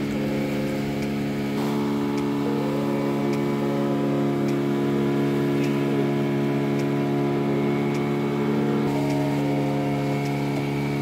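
Small fishing boat's engine running steadily under way at cruising speed, its pitch shifting slightly about a second and a half in and again near the end.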